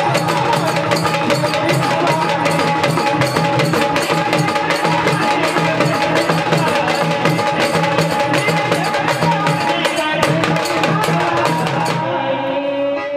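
Gondhal folk drumming: fast, dense strokes on sambal drums and other hand-held drums, with a pitched melody line over them. About twelve seconds in the drumming stops and a single held note remains.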